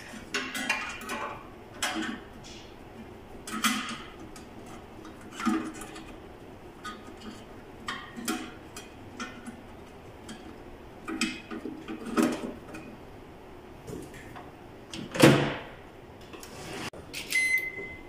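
Handling noise inside an opened microwave oven's metal chassis: irregular clicks, taps and rattles as wires and terminal connectors are pulled and worked by hand. A short electronic beep sounds near the end.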